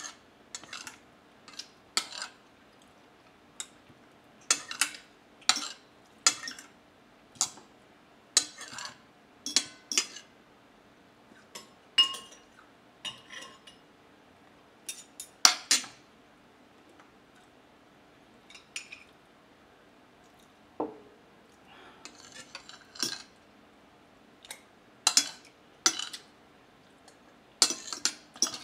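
Metal spoon and fork clinking and scraping against a plate, in many irregular sharp clicks with short pauses between. A few strikes ring briefly.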